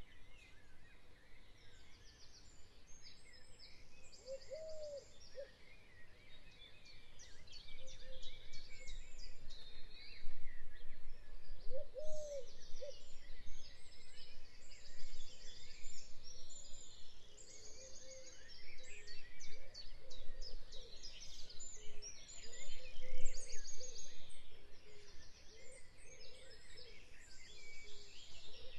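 Birdsong ambience: many small birds chirping and trilling at once, overlapping continuously, with a lower, arched call heard twice, about four seconds in and again about twelve seconds in.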